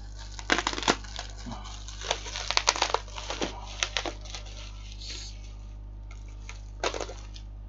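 Bubble wrap being cut and pulled open by hand, the plastic crinkling and crackling in irregular bursts of sharp clicks.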